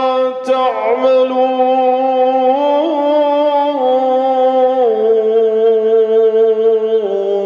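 A man's voice reciting the Quran in the melodic Iraqi style, holding one long drawn-out note that wavers and steps down in pitch a few times, around the middle and near the end.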